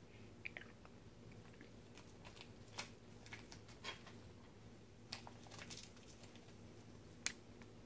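A cat mouthing and chewing at a strip of tape stuck to its face: faint scattered clicks and crinkles of mouth and tape, the sharpest one near the end.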